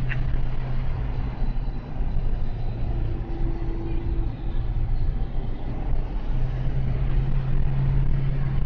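Car driving, heard from inside the cabin: a steady low engine hum under tyre and road noise, the hum growing louder about six seconds in.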